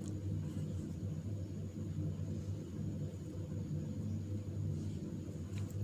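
A steady low electrical or motor hum in the room, with a faint click near the end.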